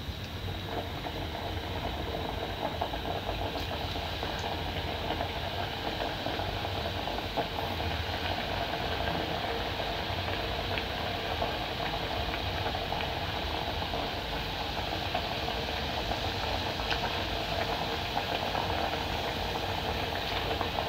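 Mandazi dough deep-frying in hot cooking oil: a steady crackling sizzle that begins about half a second in, as the pieces go into the oil.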